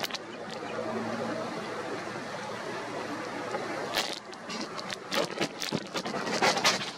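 Strong wind buffeting the camera microphone as a steady rushing noise, broken in the second half by a run of sharp crackles and knocks.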